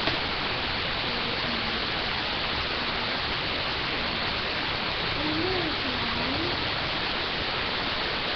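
Steady hiss from a webcam microphone, with a faint wavering tone about five seconds in.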